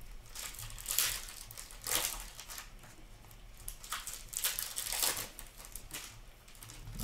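Several short rustles and crinkles about a second apart as Upper Deck hockey cards are flipped through in the hands and a torn foil pack wrapper is handled.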